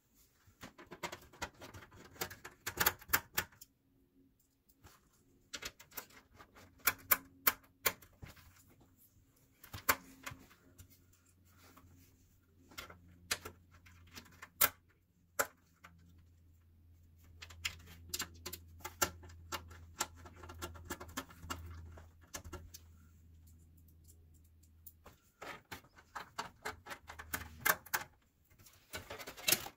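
Irregular clusters of sharp clicks and light taps from screws, a screwdriver and metal case parts being handled as a cooler radiator is fastened into a PC case. A faint low hum runs through the middle.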